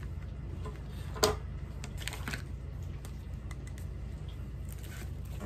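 Plastic zip-top bag of diamond painting drills being handled and laid down on the paper canvas: a sharp click about a second in and a few faint ticks, over a steady low hum.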